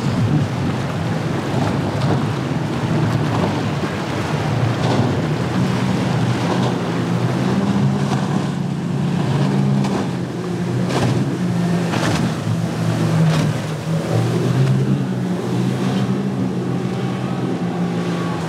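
Outboard motors running at speed as boats pound through choppy inlet water. The low engine drone shifts in pitch, with repeated hull slaps and spray splashes and wind on the microphone.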